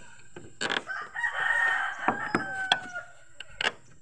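A rooster crowing once, a long call of about two seconds starting about a second in. Several sharp knocks sound around it, the loudest near the start and near the end.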